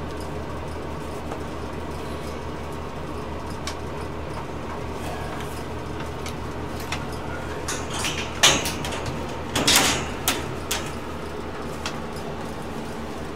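Steady low hum under a cluster of knocks, rattles and scrapes about eight to eleven seconds in, the loudest two close together near the middle of that stretch.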